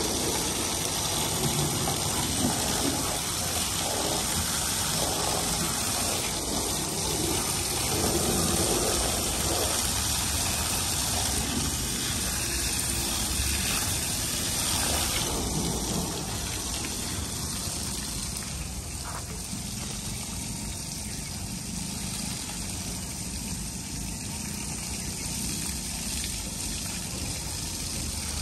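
Water spraying steadily from a hose onto a vehicle to rinse off dust, easing off a little about halfway through.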